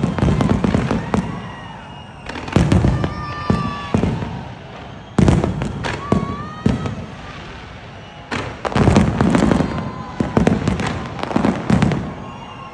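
Fireworks going off in repeated volleys of sharp bangs, each volley lasting a second or two with short pauses between them.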